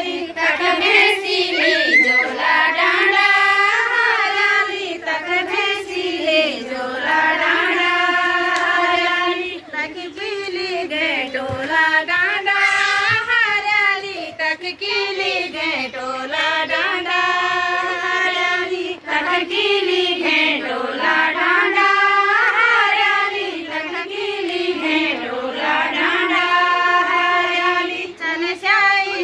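A group of women singing a Garhwali chanchari folk song together, unaccompanied, in a melody of held notes that rise and fall over a repeating phrase, with short breaths between lines.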